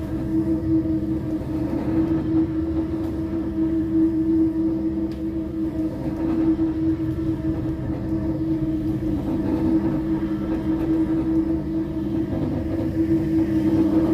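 Single-disc rotary floor machine polishing a marble floor, its motor and spinning pad running with a steady hum.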